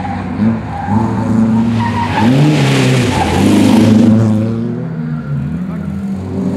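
Honda CRX rally car passing close at speed, its engine revs rising and falling several times as the driver works the throttle and gears through a corner, with loud tyre and gravel noise as it slides past, loudest about three to four seconds in.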